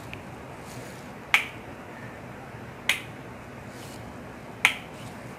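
Plastic rocker switches on an electrical switchboard being flipped by hand: three sharp clicks spaced about one and a half to two seconds apart.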